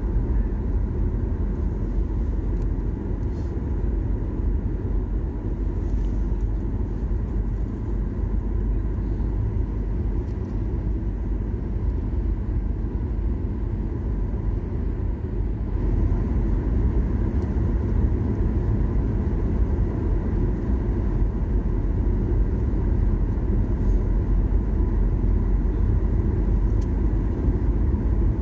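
Steady low rumble of a Boeing 737 airliner's engines and airflow, heard inside the cabin during the climb after takeoff, with a faint steady whine above it. It gets a little louder about halfway through.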